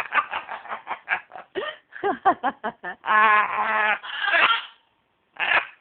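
Macaw mimicking a cough: a quick run of short hacking coughs, then a longer drawn-out pitched sound about three seconds in, and one more short cough near the end. The cough is a put-on imitation, not a sign of illness.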